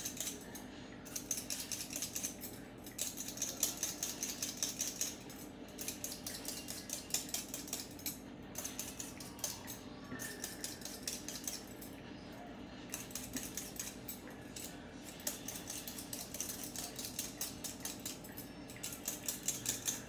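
Vegetable peeler scraping the skin off a raw potato in quick strokes. The strokes come in runs broken by short pauses every couple of seconds as the potato is turned.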